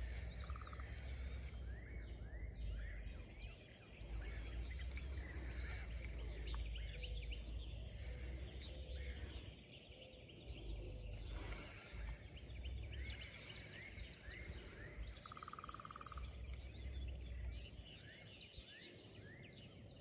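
Outdoor ambience of many small birds chirping over a patchy low rumble, with two short trills, one right at the start and one about three quarters of the way through.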